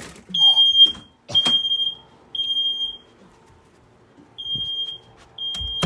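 Smoke alarm sounding loud, high-pitched beeps in groups of three, each beep about half a second long, with a pause between the groups: the alarm has been set off by smoke from something burning in the oven. A low thump near the end.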